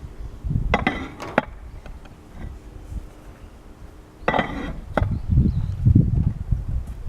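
Clay roof ridge tiles clinking and clattering as they are handled during removal. There are two short bursts, about a second in and about four seconds in, followed by low thumps.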